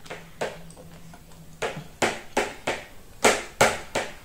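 Biting into and chewing corn on the cob close to the microphone: a string of short crunching clicks, about eight, loudest a little past three seconds in.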